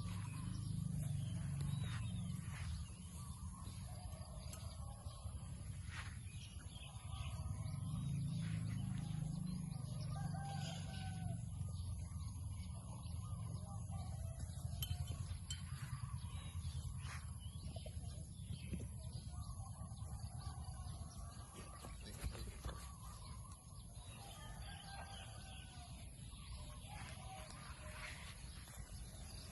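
Outdoor farm ambience: small birds chirping on and off over a steady low rumble.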